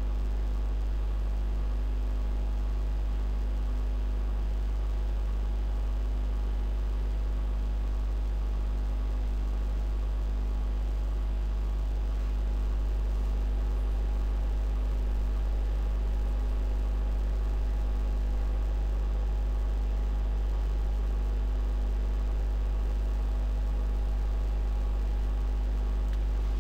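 Steady low electrical hum with a faint hiss underneath, unchanging throughout: mains hum and noise from the narration recording setup.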